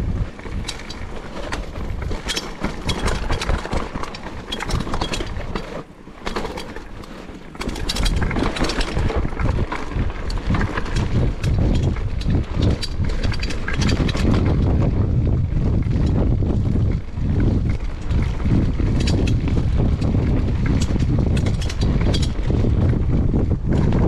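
Mountain bike ridden down a rough enduro trail, the bike clattering with many sharp knocks and rattles over the ground. Wind buffets the microphone with a heavy low rumble, louder from about eight seconds in.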